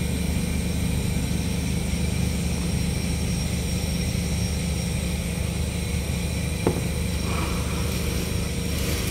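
Steady mechanical hum with a strong low drone, unchanging throughout, broken by a single sharp click about two-thirds of the way in.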